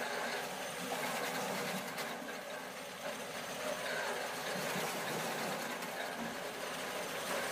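Tractor-mounted wood chipper running steadily while branches are fed in and chipped, with an occasional sharp crack.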